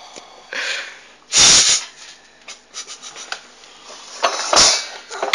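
A person breathing hard right at the microphone: three noisy exhalations, the loudest about a second and a half in and another near the end.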